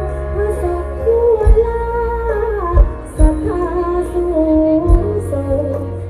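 Live Thai luk thung band with a woman singing long, gliding notes over a steady bass line and occasional drum hits, heard through a distant camera microphone in the audience.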